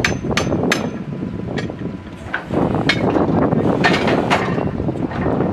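Truck-mounted borewell drilling rig running steadily, with irregular sharp metallic knocks and clinks of casing pipe and tools being worked at the well head.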